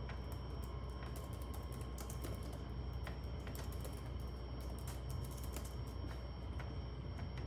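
Typing on a computer keyboard: irregular keystrokes over a steady low hum.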